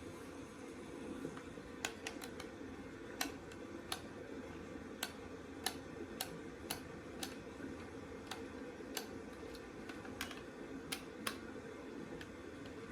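Irregular sharp clicks and taps of hard plastic toy parts being handled and worked on, over a steady low hum.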